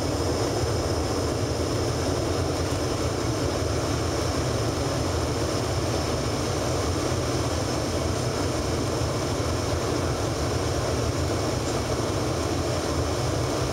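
Steady cabin noise inside an Embraer ERJ-145 regional jet on approach: a low rumble of its rear-mounted turbofans and airflow, with a thin steady high whine above it.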